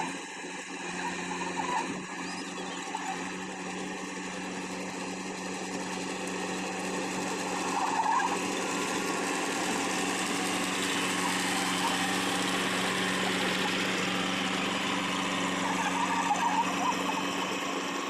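Tracked rice combine harvester's diesel engine running steadily with a constant hum as the machine drives past, growing louder with more mechanical clatter and rattle through the middle as it comes closest.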